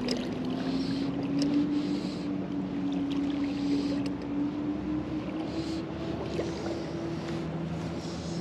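River flowing, with a distant engine droning over it, its pitch rising slowly.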